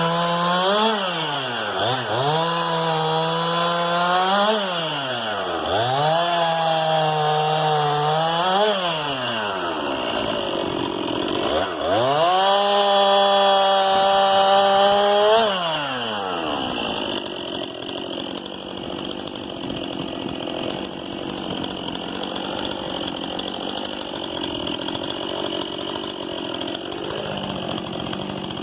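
Stihl MS 261 C-M 50 cc two-stroke chainsaw revved in four bursts, the last one longest, its engine pitch sagging a little at each plateau as the chain is loaded in the wood. About sixteen seconds in it comes off the throttle and runs on more quietly at idle.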